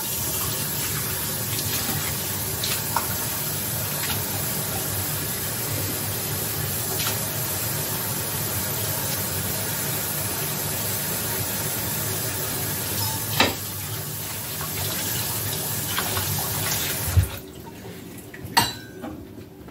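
Kitchen faucet running steadily into a sink while a measuring cup is rinsed under it, with a few knocks of the cup. The water shuts off abruptly near the end.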